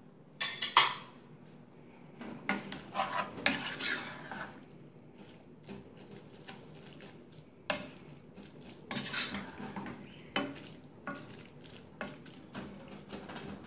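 Wooden spoon stirring shredded chicken and corn in a small saucepan, scraping and knocking against the pan in irregular strokes. The loudest strokes come about half a second in, around three and a half seconds and around nine seconds.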